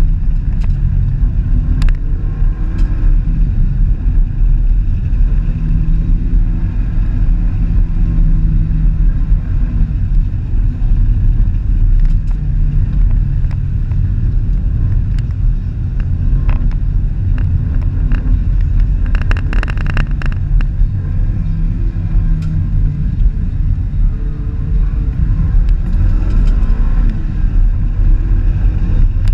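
Car driving along a road: steady engine and road rumble, the engine note rising and falling gently with speed. A brief rattle comes about two-thirds of the way through.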